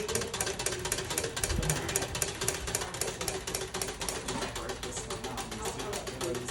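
Machine clicking rapidly and steadily, about ten clicks a second, with a steady hum under it.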